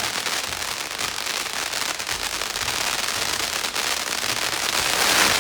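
A string of firecrackers going off in a rapid, continuous crackle of small bangs, growing louder near the end.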